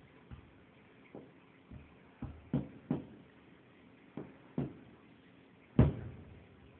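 Fireworks exploding in the distance, heard from indoors: about nine separate booms at irregular intervals, each with a short fading tail, the loudest near the end.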